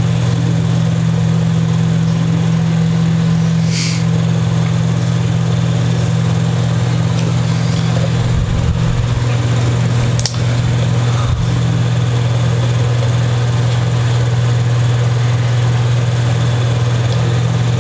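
A steady low electrical hum drones throughout, with a short scraping hiss about four seconds in and a sharp click about ten seconds in.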